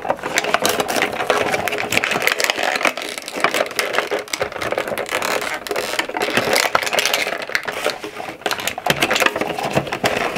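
Cardboard advent calendar doors being bent, pulled and torn by hand, a dense run of crinkling, rustling and tearing as a stuck item is worked out of its compartment.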